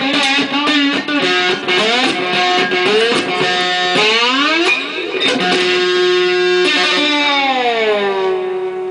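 Homemade three-string plank guitar with a hand-wound pickup, played amplified with a slide: plucked notes gliding up and down in pitch, ending on a long note that slides down and rings on.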